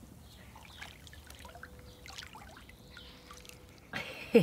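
Faint swimming-pool water lapping and trickling, with small scattered drips. About four seconds in, music starts suddenly and is much louder.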